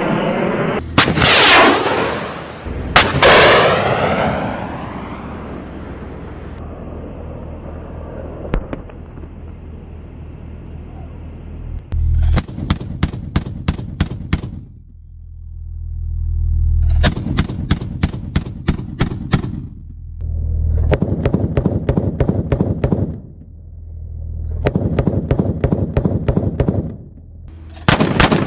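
War sound effect: two missiles whoosh past in the first few seconds, each trailing off into a long rumble. From about twelve seconds on come four bursts of rapid machine-gun fire, each about two seconds long, over a low rumble, with a fifth burst starting at the very end.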